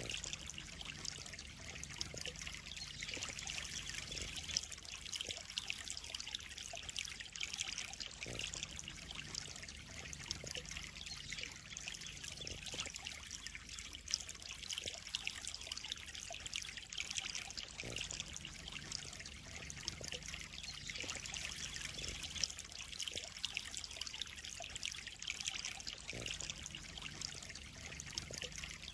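Water in a koi pond trickling and splashing steadily, a fine, even patter of running water.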